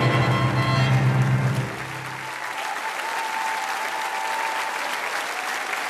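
Live band music ending on a held final chord about a second and a half in, then a large studio audience applauding.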